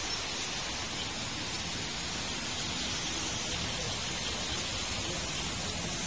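Steady heavy rain falling, an even hiss without distinct drops.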